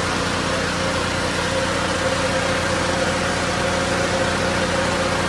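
Fire engine idling: a steady engine hum under an even hiss that does not change.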